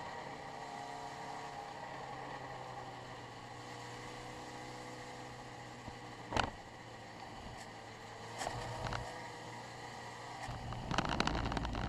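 Mini stock race car's engine running at a steady pace, heard from inside the cockpit. A sharp knock comes about six seconds in, and near the end a loud burst of rattling and banging.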